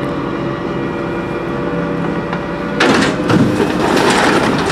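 Leach Sanicruiser garbage truck's hydraulic lift raising and tipping a steel commercial dumpster, with the truck running at a steady whine. About three seconds in, a louder rushing clatter sets in as the dumpster's load spills into the hopper.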